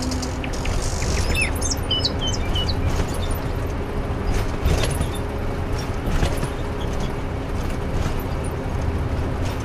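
Street ambience: a steady low traffic rumble with birds chirping in the first few seconds and a few sharp knocks.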